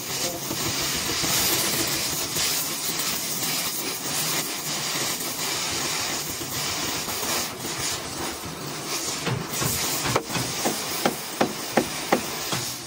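Steady hissing workshop noise, with a run of hammer blows, about three a second, in the last few seconds.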